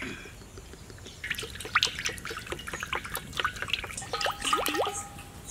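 Cooking oil pouring from a plastic can into a large iron wok: a splashing, dripping stream that starts about a second in. A few gliding tones sound near the end.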